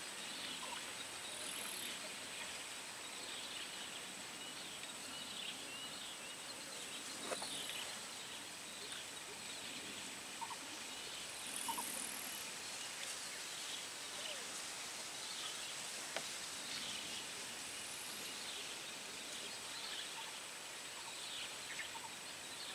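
Faint outdoor ambience of insects: a steady high drone with scattered short high chirps, and a few faint clicks.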